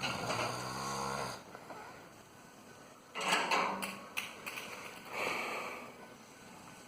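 A sleeper snoring: one drawn-out pitched snore lasting about a second and a half at the start, then two shorter, rougher snoring breaths about three and five seconds in.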